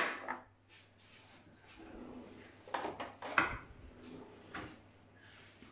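Kitchen handling sounds: a sharp click at the start, then a cutlery drawer pulled open with a few knocks and rattles about three seconds in.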